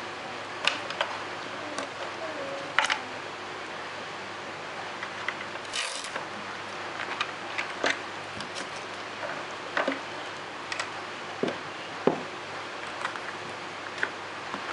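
Scattered light clicks and knocks of hands handling parts in the open hatch of a wooden RC model speedboat, with a short rustle about six seconds in, over a steady background hiss.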